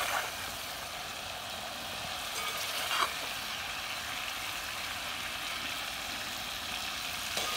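Prawns frying in hot coconut oil in an uruli, a steady sizzle, with a few scrapes of a spoon against the pan as they are scooped out.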